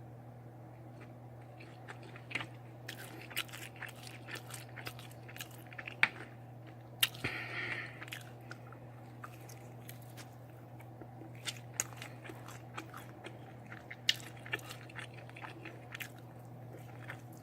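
Close-up eating sounds of someone chewing and biting into barbecue ribs: wet mouth clicks and smacks come irregularly, the sharpest about six, seven and fourteen seconds in. A steady low hum runs underneath.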